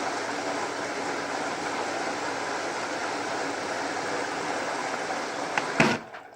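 Water rushing steadily into a Panasonic NA-168VX4WGN washing machine as it fills for the soak stage. Near the end there are a few clicks and the rush cuts off suddenly.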